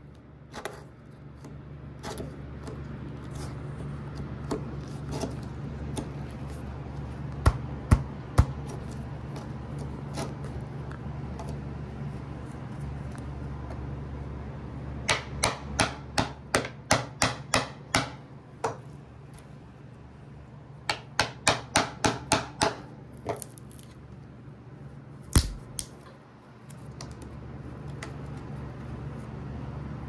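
Hammer blows on a steel nail puller dug into a freshly sawn pine board to work out something stuck in the wood. A few single strikes come first, then two quick runs of about four blows a second, then one last hard blow. A steady low hum runs underneath and cuts out shortly after the last blow.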